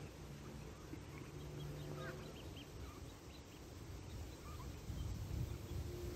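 Ducklings peeping: a scatter of short, high cheeps, over a low rumble that grows louder near the end.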